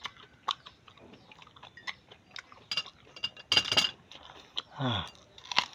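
Close-up chewing and biting of a raw, unripe green saba banana: scattered wet mouth clicks and smacks, a louder bite a little past halfway, and a short falling 'mm' from the eater about five seconds in.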